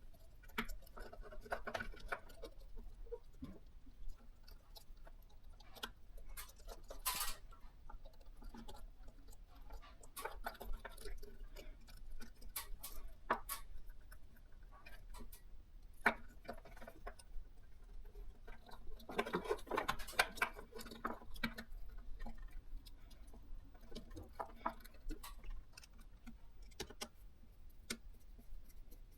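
Irregular small clicks and taps, scattered unevenly, with two short stretches of rustling handling noise.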